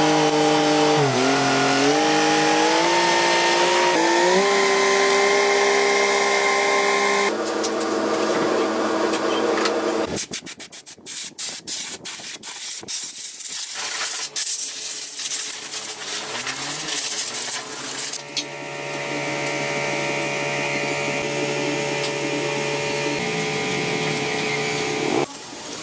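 Power tools running in several short clips. A motor's pitch rises in steps at first, then comes a stretch of sharp clicks and taps, and a steady motor hum returns near the end.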